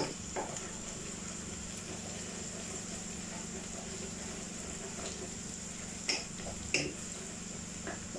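Wooden spatula stirring onions sautéing in a metal pan, with a faint frying hiss and a few knocks of the spatula on the pan, two sharper ones about six and seven seconds in. A steady low hum runs underneath.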